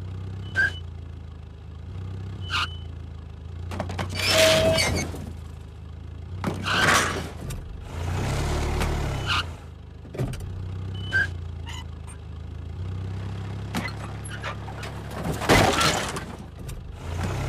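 Cartoon sound effects of a car towing a boat trailer: an engine running steadily with a couple of short revs, broken by repeated crashes and clatters as the car and trailer knock over traffic cones and hit the rocks. The loudest crashes come about four seconds in and near the end.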